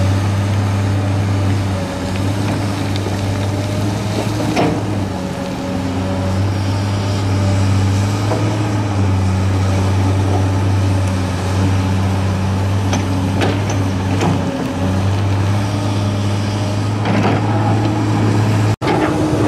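Komatsu PC290LC excavator's diesel engine running steadily with a deep hum, easing off briefly a few times as the machine works the bucket through dirt. Several short knocks or scrapes stand out, about 4.5 s, 13 s and 17 s in.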